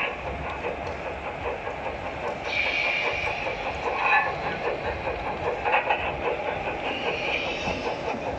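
Gauge G model trains running on a layout: steady clicking of wheels over the track, with a hiss that grows brighter about two and a half seconds in.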